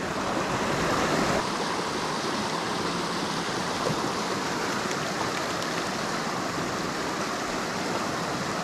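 Steady rushing of a small mountain stream running over rocks and shallow riffles.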